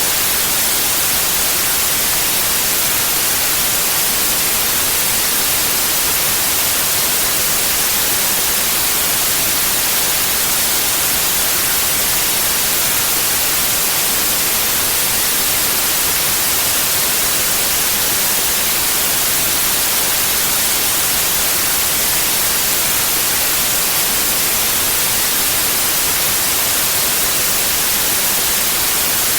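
Steady white noise: an even, unbroken hiss.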